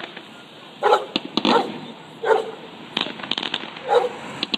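A dog barking, four short barks, with firework crackles and pops between them.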